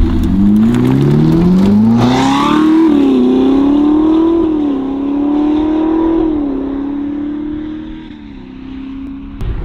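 Ferrari SF90's twin-turbo V8 through a Novitec stainless sport exhaust, accelerating hard away: the pitch climbs, drops with an upshift a little under three seconds in, then climbs and drops again through three more upshifts. It grows fainter as the car pulls away.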